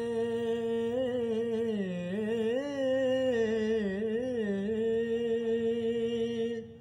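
An unaccompanied voice singing a naat, drawing out one word as a long held note that winds up and down in pitch, then dies away just before the end.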